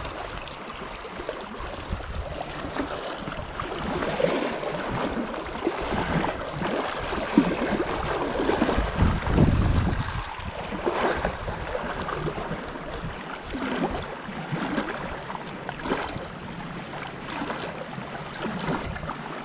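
Small lake waves lapping and sloshing right at the microphone at the water's edge, coming in irregular surges, the biggest about halfway through.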